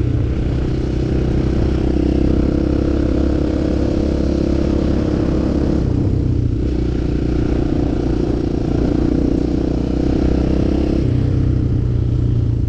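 Enduro motorcycle engine running steadily while riding off-road, its note shifting about six seconds in and again about eleven seconds in.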